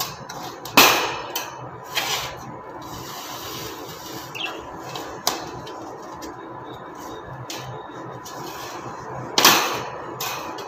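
Wire birdcage being handled at its base: scraping and rubbing, with four sharp clattering knocks, the strongest about a second in and near the end.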